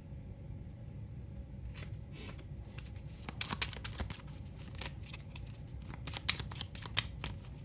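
A deck of cards being shuffled by hand: rapid clicking and rustling of card edges starting about two seconds in, in a few quick runs, over a steady low hum.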